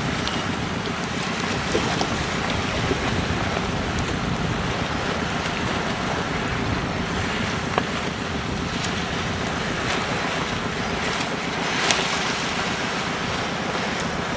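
Boat under way at sea: a steady rush of water and wind buffeting the microphone, under a low steady hum, with a few brief faint knocks.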